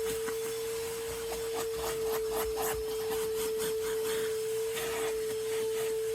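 Vacuum cleaner running with a steady high whine, its nozzle rubbing over the car's carpet or upholstery in repeated short strokes.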